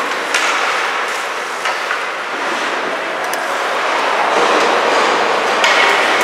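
Ice rink ambience: a steady hiss of hockey skate blades gliding and scraping on the ice over the arena's background noise, with a few light clicks, growing a little louder in the last two seconds.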